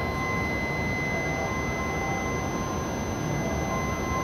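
Station platform departure warning: a steady high electronic beep held throughout, with a melody of short chime notes over it, signalling that the train doors are about to close.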